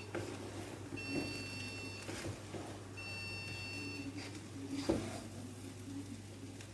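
Oven timer beeping to signal that baking is finished: long beeps of about a second each, every two seconds, twice, then stopping, followed by a single knock about five seconds in.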